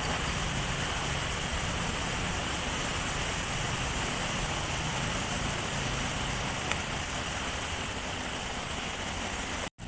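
Steady, even water noise, running water by the river mixed with drizzle, with no distinct events; it cuts out abruptly for a split second near the end.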